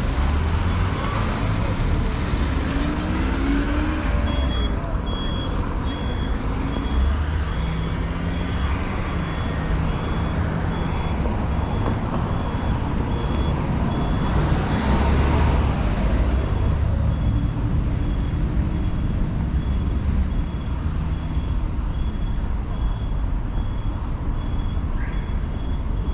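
City street traffic: cars and a truck driving past, with engine rumble and tyre noise. From about four seconds in, a high electronic beep repeats about once a second, pausing briefly in the middle.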